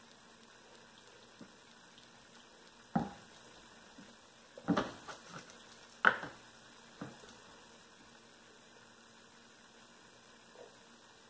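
Sauce-coated pork rib pieces being handled and laid into a slow cooker crock, with a glass sauce bottle set down on the tiled counter: quiet wet handling broken by a few sharp knocks, the loudest about three, five and six seconds in.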